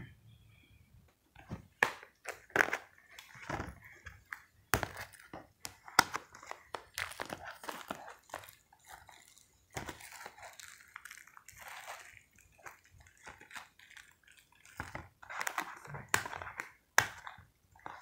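Plastic shrink wrap on a Blu-ray case crinkling as the case is handled, with irregular sharp clicks and taps of the case and its contents.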